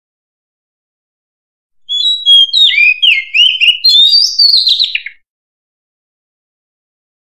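Oriental magpie-robin singing one phrase of about three seconds, starting about two seconds in: a run of clear, sliding whistles and warbles. The recording has been boosted in volume.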